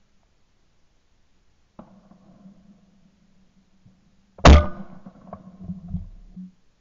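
A single shotgun shot fired at a clay target about four and a half seconds in, followed by a rumbling echo that dies away over about two seconds. A fainter knock comes near two seconds in, before the shot.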